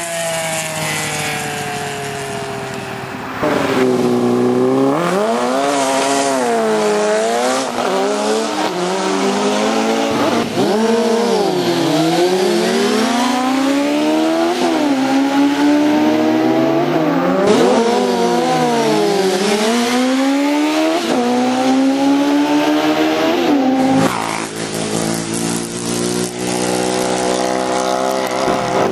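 Sport motorcycle engines revving hard and backing off again and again, the pitch swooping up and down, during stunt riding and wheelies. The sound changes abruptly about three and a half seconds in and again near twenty-four seconds, as one clip gives way to the next.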